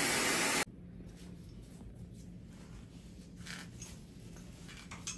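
Cast saw running steadily, then switched off abruptly under a second in, as the cast is cut off the forearm. After it, faint small clicks and rustles in a quiet room.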